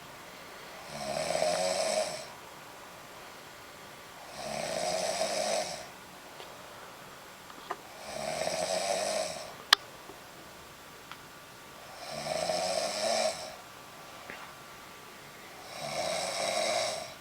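A woman snoring in deep sleep: five slow, regular snores, one about every four seconds, each lasting a second or so. A single sharp click near the middle is briefly louder than the snores.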